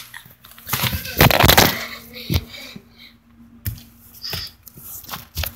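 Handling noise from a phone being moved about in the hand: rubbing on the microphone, loudest about a second in, and a few sharp knocks and clicks.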